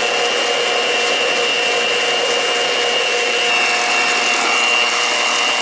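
Black+Decker electric hand mixer running steadily, its beaters working cookie dough in a stainless steel bowl, with a steady high whine over the motor noise.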